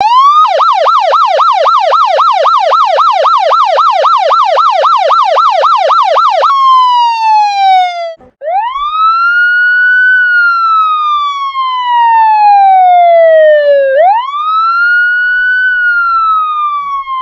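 Police siren sound effect. It yelps rapidly, about four rises and falls a second, for about six seconds, then switches to a slow wail that rises and falls over several seconds, with a brief break around eight seconds in.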